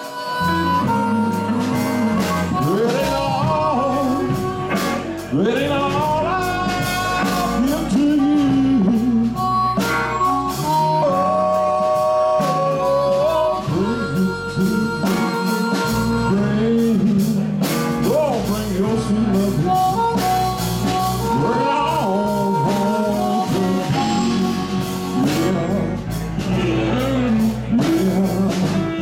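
Live blues band playing: electric guitars and blues harmonica with a male lead singer.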